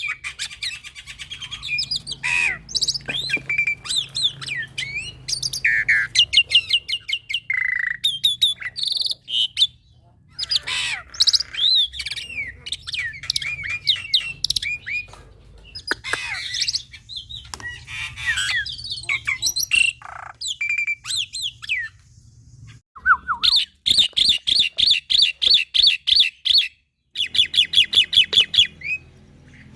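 Young black-winged myna (jalak putih) singing a long, varied song of whistles, harsh squawks and chatter. Near the end it gives fast runs of repeated notes, several a second.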